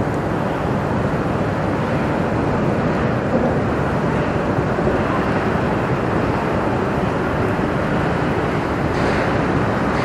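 Steady, even outdoor rumble: wind on the microphone over the low running noise of a passing Great Lakes bulk freighter, with no horn sounding.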